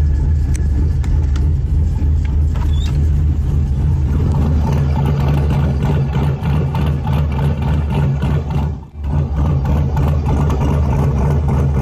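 LS-swapped V8 on Holley EFI idling steadily while it warms up, with a few light clicks in the first few seconds and a brief drop in level about nine seconds in.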